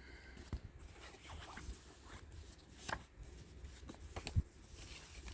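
Quiet handling of a CD case and its fold-out paper booklet: soft rustling with scattered light clicks, the sharpest about three seconds in and again a little past four seconds.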